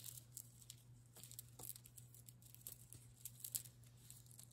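Faint, scattered clicking of acrylic beads and metal findings knocking together as a beaded necklace is handled.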